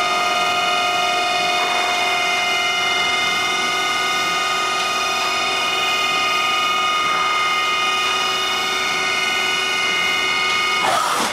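Makino S33 vertical machining center's automatic pallet changer swinging a pallet round, a steady mechanical whine made of several fixed tones. A brief broader clatter comes right at the end.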